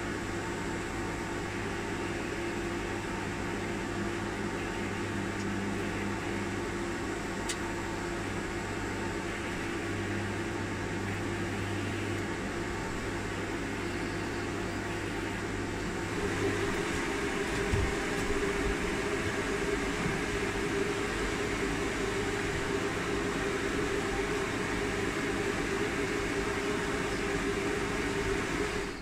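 Steady hum and air hiss of a powder-coating setup: the spray booth's extractor fan running while compressed air carries powder out of the electrostatic powder gun. The hum shifts and gets a little louder about two-thirds of the way through.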